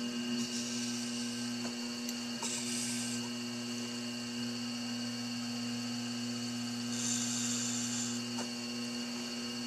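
Electric potter's wheel motor humming steadily as the wheel spins, with a few short scrapes of a wooden tool against the turning clay cup.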